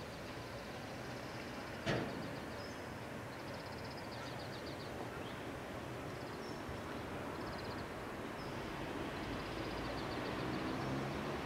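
Outdoor background with birds singing in short repeated trills, and one sharp click about two seconds in. A distant electric train approaches, its low hum slowly growing louder toward the end.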